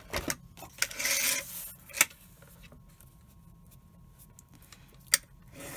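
Cardstock being slid into place on a paper trimmer: a short papery rasp about a second in, sharp clicks of the trimmer's rail near two and five seconds, and more sliding near the end.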